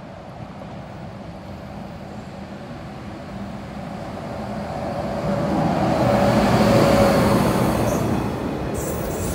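An SJ Rc-class electric locomotive and its passenger coaches approaching and passing close by on the rails, the rumble building to a peak about two-thirds of the way through and easing a little near the end. A steady tone sits over the rumble while the locomotive goes past.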